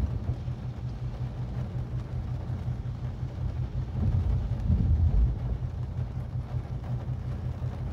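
Mazda 3 driving, a steady low rumble of road and engine noise that swells and fades slightly.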